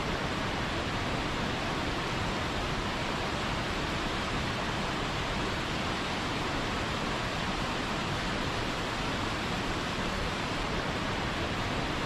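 Steady rushing water, a constant even roar like a waterfall or rapids, unchanging throughout.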